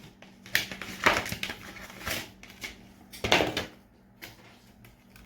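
Rustling and handling noises as a U-part wig cap is opened out: four or five short scrapes and crinkles, the loudest about a second in and just after three seconds.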